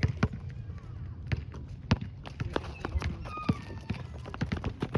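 Basketball players running on a gym floor: irregular sharp thuds of footsteps and ball bounces, with a few short sneaker squeaks.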